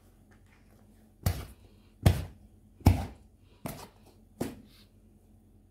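Five heavy knocks at an even pace, a little under a second apart, each with a short ring-off; the middle three are the loudest.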